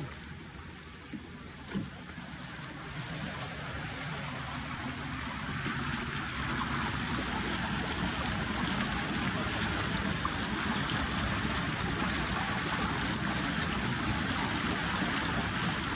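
Water gushing steadily from a concrete outlet into a fish net, growing louder over the first six seconds or so and then holding even.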